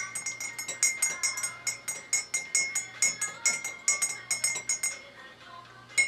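Metal teaspoon stirring coffee in a ceramic cup, clinking quickly against the sides, several clinks a second with a ringing tone; the clinking fades out about five seconds in.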